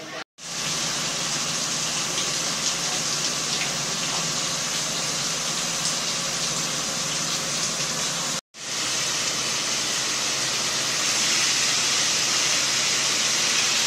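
Fire hose spraying a jet of water onto burnt walls: a steady, loud hiss and rush of water with a low steady hum underneath. The sound breaks off briefly twice, near the start and a little past halfway.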